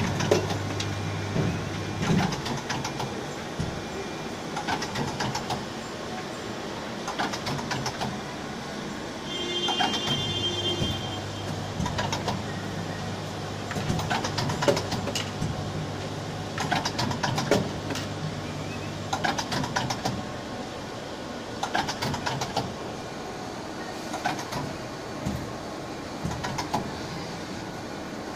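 Automated part-inspection machine running: pneumatic grippers and moving parts make frequent irregular clicks and knocks over a low hum that comes and goes. A brief high-pitched tone sounds about ten seconds in.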